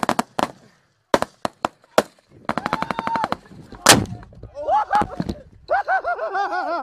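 Rifle fire: a rapid burst of shots, a few single shots, a second rapid burst, then one loud crack about four seconds in. After it a man gives short, repeated cries.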